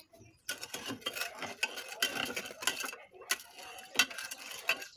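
A spoon stirring in a jug, clinking against its sides in quick, irregular ticks.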